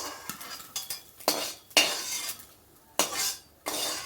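A metal spoon or spatula scraping and clinking against a metal pan in a few separate strokes, the loudest about two seconds in.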